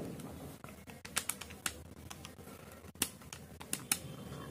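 Buttons being pressed on a Casio handheld calculator: a string of light, sharp clicks at an uneven pace, several in quick clusters.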